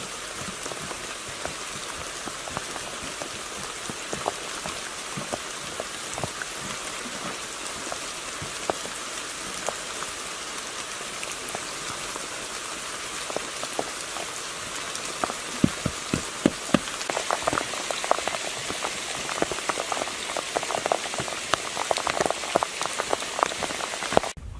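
Rain falling steadily, a constant hiss with many separate drops striking close by; the heavy drop hits come thicker and louder in the second half.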